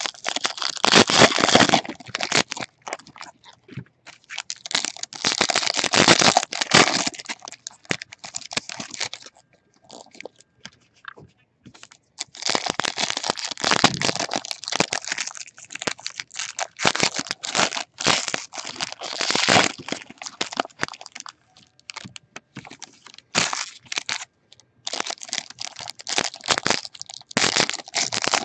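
Foil trading-card pack wrappers crinkling and crackling as card packs are handled and opened by hand. The crinkling comes in several spells with a few seconds' lull in the middle.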